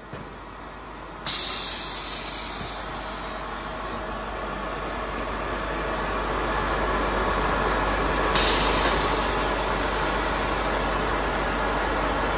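Shrink-wrap heat tunnel's hot-air blowers running with a steady rushing hiss over a low hum. The hiss jumps louder suddenly about a second in, and again about eight seconds in.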